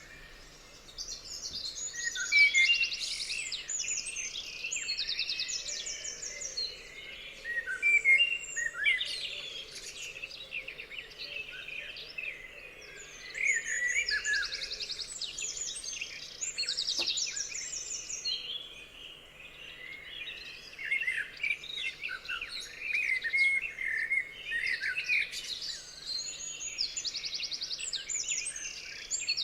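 Several songbirds singing together in an overlapping chorus of chirps and whistled phrases, with bouts of fast high trills recurring every few seconds.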